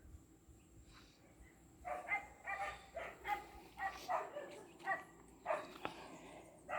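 An animal's short, pitched calls repeated about twice a second, nine or so in a run beginning about two seconds in.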